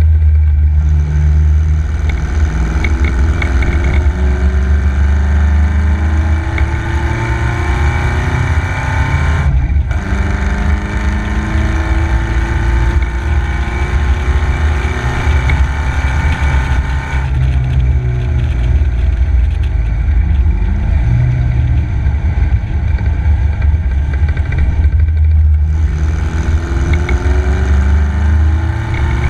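MG KY Special racing car's engine running hard under way, its revs climbing again and again as it accelerates. The sound drops briefly about a third of the way in and again near the end.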